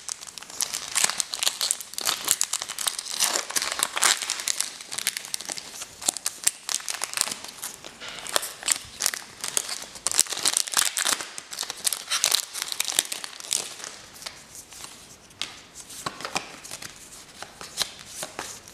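Foil wrapper of a Pokémon Burning Shadows booster pack crinkling and tearing as it is opened by hand. The dense crackling thins out in the last few seconds.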